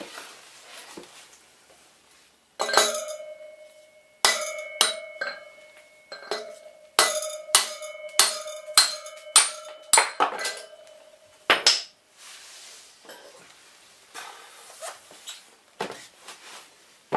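Hammer blows on a steel drift punch, knocking out a motorcycle front wheel bearing: about fifteen sharp metal-on-metal strikes, each with a ringing tone, coming about two a second in the middle and ending in one last strike a little before halfway through, then faint metal handling.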